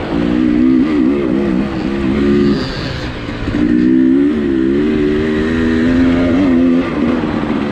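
Dirt bike engine revving under throttle, its pitch rising and falling as the rider works the throttle. It eases off about three seconds in, then opens up and pulls steadily again, and eases off once more near the end.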